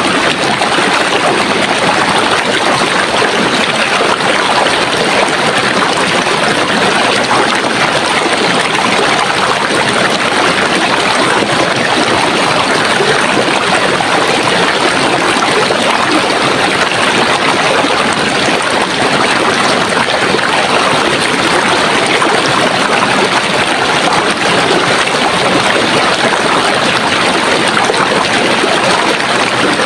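Running water of a stream, a steady, even rush with no let-up.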